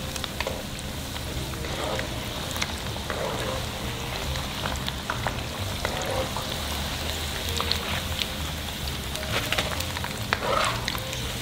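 Battered fish fillets deep-frying in hot oil in a wok: the oil sizzles steadily with many small sharp crackles and pops.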